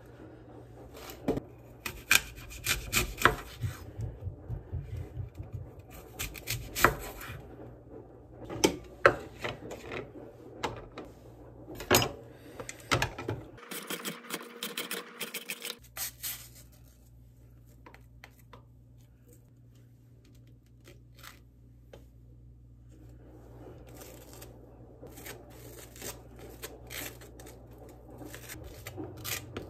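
Rubbing and scraping with many sharp clicks and knocks, as of objects being handled; after an abrupt cut about halfway through it is quieter for several seconds, with a few faint clicks, before the handling noises pick up again near the end.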